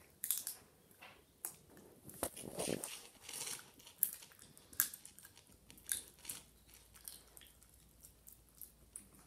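A toy poodle puppy chewing and crunching a raw chicken wing: irregular bites and crunches, busiest in the first five seconds and sparser toward the end.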